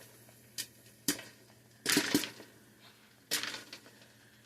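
Popcorn kernels popping in a Pampered Chef Pop and Stir stovetop popper: about five sharp, irregular pops, two of them close together near the middle.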